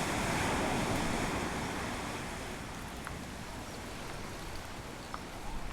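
Sea surf washing on the shore with wind, a swell of noise loudest in the first second that eases off through the rest.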